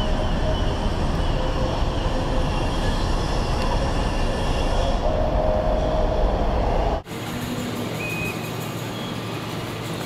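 Steady, deep outdoor rumble of wind buffeting an action camera's microphone high on the outside of a tower, with faint steady tones in it. About seven seconds in it breaks off abruptly into a thinner, quieter hiss without the deep rumble.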